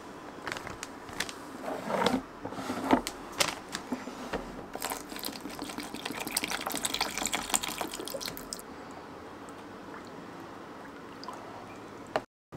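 Crackling and tapping of a plastic adhesive packet being handled for the first few seconds. Then water is poured from a plastic bottle onto wallpaper-paste powder in a plastic paste tray: a steady splashing pour of about four seconds that stops abruptly. Quiet faint clicks follow as the paste is stirred with a wooden stick.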